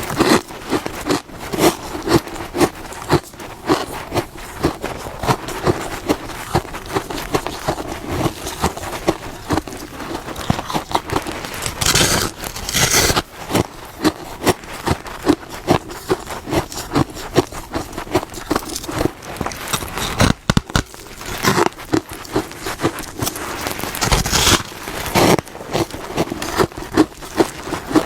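A person biting and chewing hard freezer frost, crisp crackling crunches coming about two a second. Two louder, rougher crunching spells come about halfway through and again near the end.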